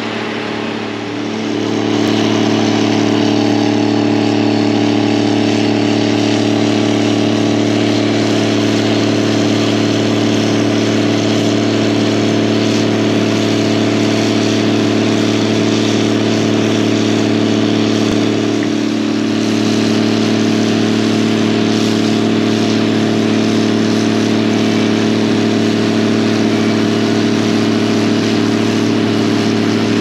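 Gleaner R72 combine running close by as it unloads wheat into a grain trailer through its unloading auger: a loud, steady machinery drone that comes in sharply about two seconds in, after a quieter engine sound at the start.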